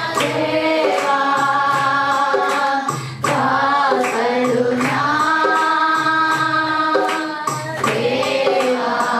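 A man singing a Kannada Christian worship song into a microphone, holding long notes over backing music with a steady low beat.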